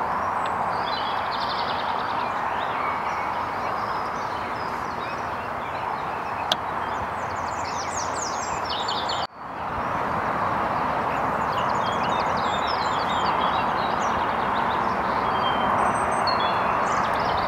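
Songbirds singing in short chirping phrases, several times, over a steady background noise. The sound cuts out briefly about halfway through and swells back.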